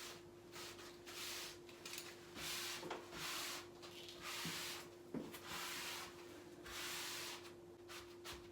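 Rubbing strokes across freshly glued glass-fibre wallcovering as it is smoothed onto the wall. There are about six hissy sweeps, each under a second, with short pauses between them, over a faint steady hum.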